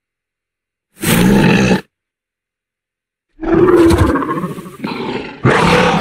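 Therizinosaurus roar sound effects from film sound design. A short roar comes about a second in, then a longer roar a little past three seconds, with another following right after it near the end.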